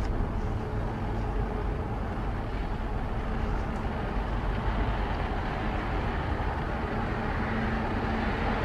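Engines of a high-speed passenger ferry passing close by: a steady low rumble, with a faint steady hum coming in near the end.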